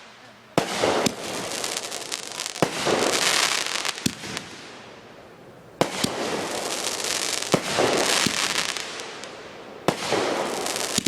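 Aerial fireworks going off: three times a sharp bang is followed by several seconds of dense crackling as the burst spreads, about a second in, near the middle and near the end, with a few more single pops in between.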